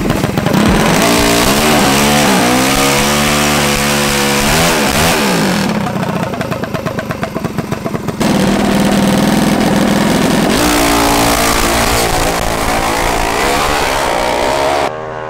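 Drag-racing minibike's small engine revving up and down several times, then held at a steady note and rising in pitch as the bike accelerates down the strip. The engine sound changes abruptly near the end.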